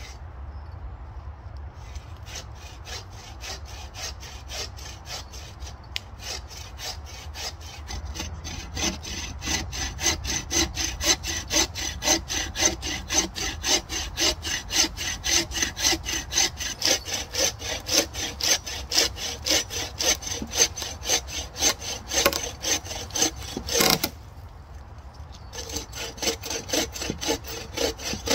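Bow saw cutting through a thick fallen branch in steady back-and-forth strokes. The strokes are faint at first and grow much louder about a third of the way in, stop briefly near the end, then start again.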